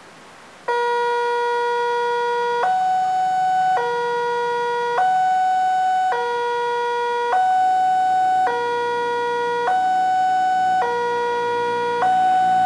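Railway level-crossing warning alarm, switched on suddenly about a second in: an electronic two-tone signal alternating between a lower and a higher tone, each held a little over a second. It is the signal that a train is approaching and the crossing barriers are closing.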